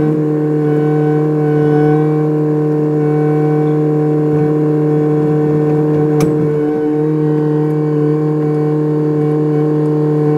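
Kubota excavator running steadily with an even, unchanging hum, and a single sharp click about six seconds in.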